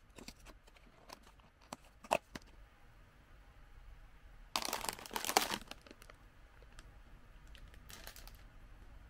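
A paperboard snack box being opened: a few sharp snaps and tearing of the perforated flap in the first couple of seconds. About halfway through, the plastic snack bag inside crinkles loudly as it is pulled out, with a shorter crinkle near the end.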